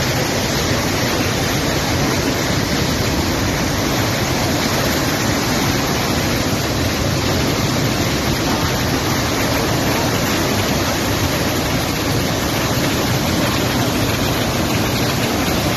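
Flash floodwater rushing in a steady, loud torrent of muddy water.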